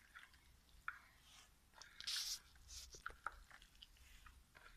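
Faint wet squishing and scattered clicks of a bare hand mixing raw chicken pieces with spice paste on a plate, with a louder squelch about two seconds in.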